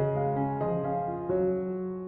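Background piano music: a gentle melody of sustained notes over soft chords.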